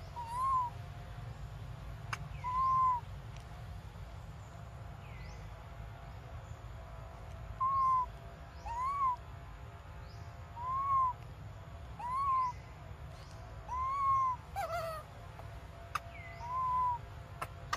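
Baby long-tailed macaque giving short whimpering coo calls, each rising then falling in pitch, about ten in all with a pause of a few seconds early on.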